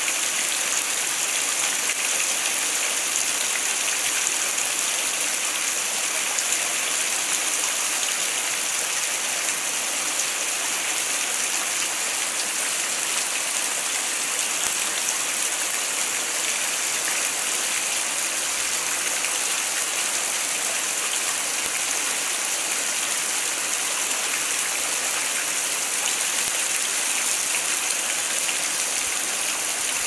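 Small waterfall spilling off a rock face and splashing onto rocks and shallow water below, a steady, even hiss of falling water.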